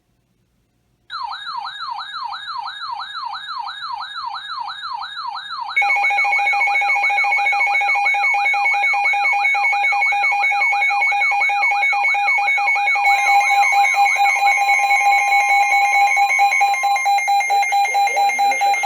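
Emergency Alert System alert tones. An electronic siren-like tone warbles rapidly up and down, about five times a second. About six seconds in, a louder steady alert tone comes in on top, and the warble fades out partway through while the steady tone carries on.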